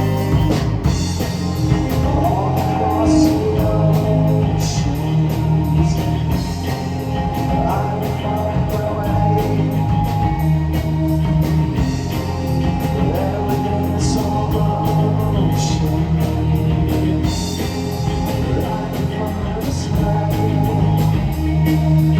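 A rock band playing live: electric guitar, bass and drum kit in a steady, continuous groove.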